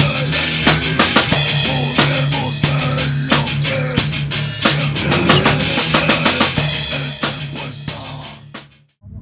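Background music with a drum kit and guitar playing a steady beat, fading out near the end.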